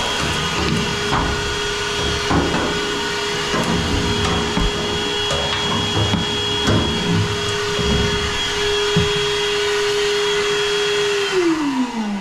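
A vacuum running steadily with scattered knocks and clatters. It is switched off near the end, and its pitch falls as the motor winds down.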